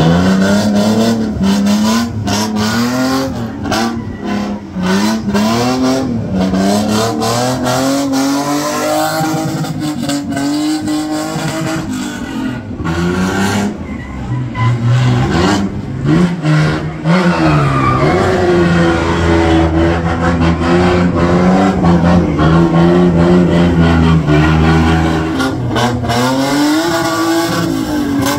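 Drift car engine revving hard, its pitch rising and falling as the throttle is worked, then held at high revs for long stretches during a slide.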